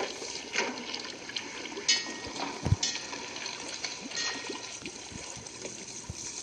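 Water sloshing and washing around a sinking wooden fishing boat, with several sharp splashes and one heavy low thump about halfway through.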